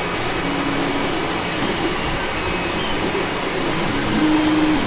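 Steady fan whir from a shelf of running Creality 3D printers, with brief steady whining tones that start and stop a few times, the loudest near the end.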